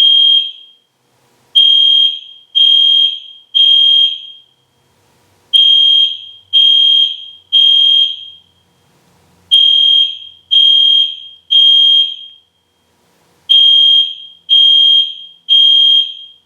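EST Genesis fire alarm horn sounding at full volume in the temporal-3 evacuation pattern. It gives three loud, high-pitched beeps, then a pause, and the group repeats about every four seconds.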